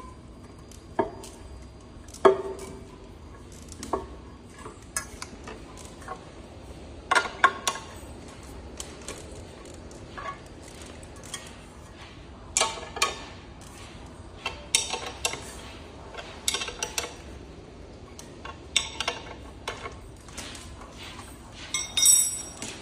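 Metal tools and scooter parts clinking and clanking irregularly, a dozen or so sharp knocks and taps, a few of them ringing briefly, with a ringing metallic ping near the end, during the replacement of an electric scooter's rear hub motor.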